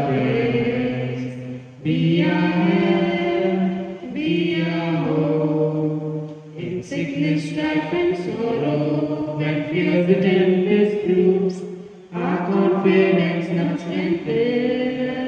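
A group of voices singing a hymn to Saint Jude together, in sung phrases with short breaks between them.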